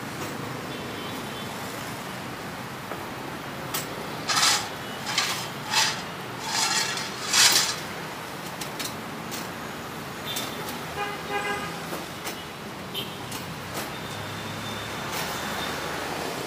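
Steady street traffic noise, with a run of short, harsh scraping or clattering noises about four to eight seconds in and a vehicle horn honking briefly about eleven seconds in.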